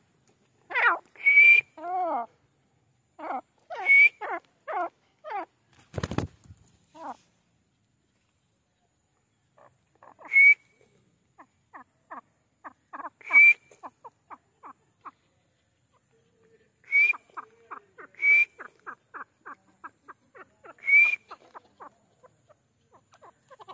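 Grey francolin calling at close range: repeated phrases, each a sharp high note followed by a fast run of short clicking notes. There is a pause of a few seconds near the middle and a single knock about six seconds in.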